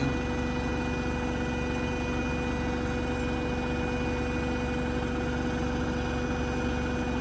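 Beko WTK104121A front-loading washing machine spinning at high speed on its 1400 rpm spin: a steady motor whine over a low hum, holding an even pitch.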